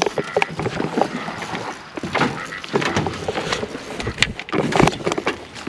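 Hurried footsteps on a grated dock walkway, mixed with scraping, knocking and rustling from a handheld camera being carried along, with sharper knocks about four and five seconds in.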